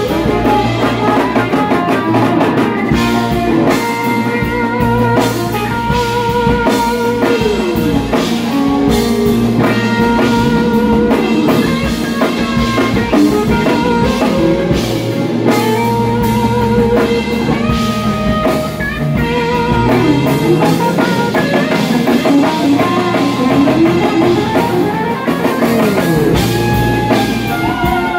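Live jam band playing an instrumental passage on two electric guitars, electric bass, keyboards and drum kit, with lead lines that bend and slide in pitch.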